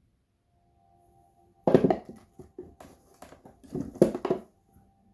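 Old hand tools handled and knocked together in a toolbox: a run of clicks and knocks, with two louder clatters about two seconds in and about four seconds in.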